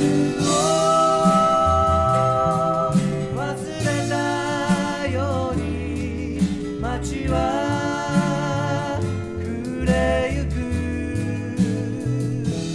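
Music: the closing passage of a Japanese pop ballad, a long held lead melody over bass and drums with no words.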